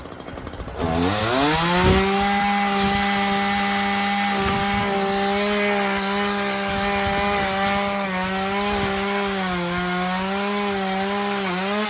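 Chainsaw throttled up to full revs about a second in and held there, cutting into a tree branch; the pitch dips and wavers near the end as the chain works through the wood, then falls away.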